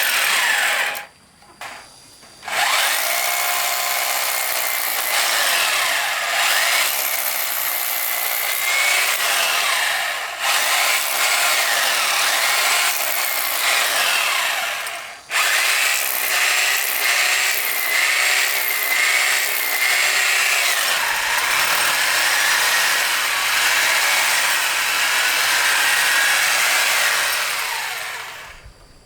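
Handheld power tool running under load, its pitch wavering up and down. It stops briefly about a second in and again about halfway through, then winds down near the end.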